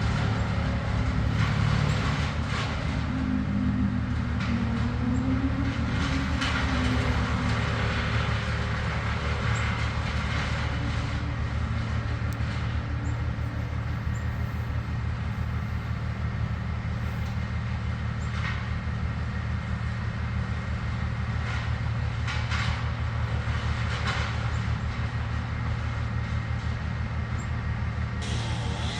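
Heavy engines running in a steady low rumble, with a few faint brief clatters.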